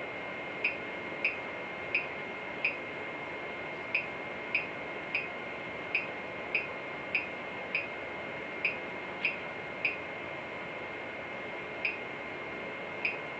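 Wanhao 3D printer giving sixteen short, sharp chirps, one for each click of its control knob. Each click feeds 1 mm of filament through the extruder. A faint steady high whine runs underneath.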